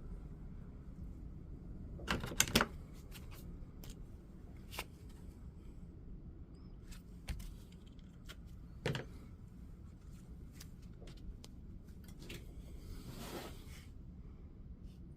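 Scattered small clicks and taps of parts and tools being handled on a workbench, loudest as a quick cluster about two seconds in, with a short rustle near the end.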